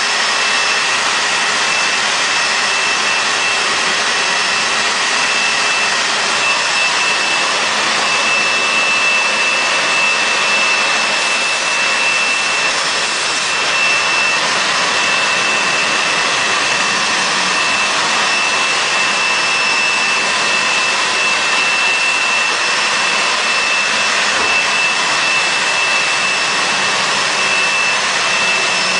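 Industrial rug-washing machine running: a loud, steady machine noise with a steady high-pitched whine.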